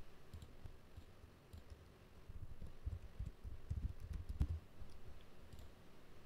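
Faint computer mouse clicks and keyboard typing: a few scattered sharp clicks, with a run of dull low knocks around the middle.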